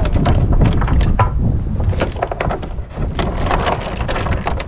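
A run of irregular clicks and knocks, like things being handled, over a steady low wind rumble on the microphone.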